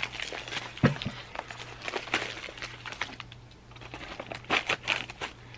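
Crinkling and rustling of mail packaging being handled and unwrapped, a quick irregular string of small crackles.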